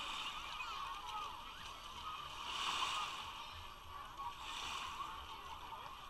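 Crowded beach: a mix of many distant voices and children's shouts, over small waves washing and splashing at the shoreline that swell up twice.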